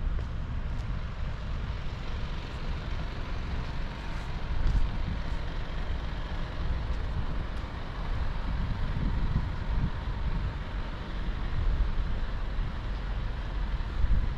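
Gusty wind buffeting the microphone, with a steady hiss of distant traffic beneath it.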